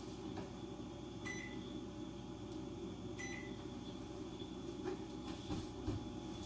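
Two short electronic beeps about two seconds apart, each starting with a click, like a kitchen appliance's touch-panel buttons being pressed while it is wiped, over a steady low hum.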